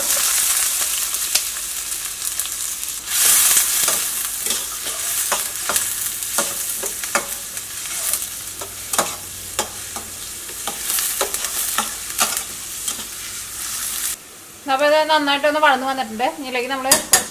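Chopped red onions and green chillies sizzling in hot oil in a stainless steel pan, with a spatula scraping and stirring them through the hiss. The sizzle is loudest about three seconds in and cuts off suddenly about three seconds before the end, after which a voice is heard.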